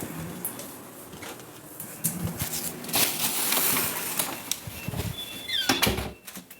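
Rustling and bumping handling noise with sharp clicks, loudest in the middle. Near the end a faint, high-pitched steady tone begins: a building fire alarm starting to sound.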